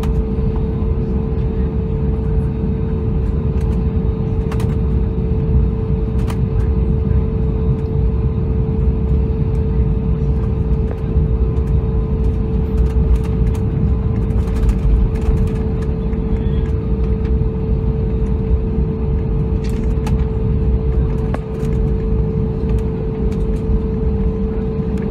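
Airbus A320neo's Pratt & Whitney geared turbofan engines running at taxi power, heard inside the cabin over the wing: a loud, steady low rumble with a constant hum, and a few faint clicks.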